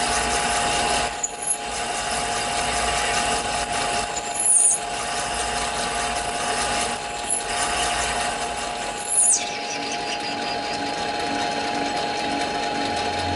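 Taig lathe running steadily with a whine while an MT1 Morse taper reamer cuts into the bore of a spinning test piece, a scraping cutting noise with short high squeals about every two to three seconds, the loudest around the middle and about nine seconds in. The cutting noise eases after about nine and a half seconds, leaving the lathe running.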